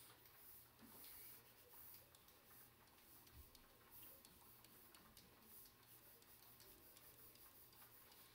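Near silence with faint, irregular clicks and taps from a stylus drawing lines and tick marks.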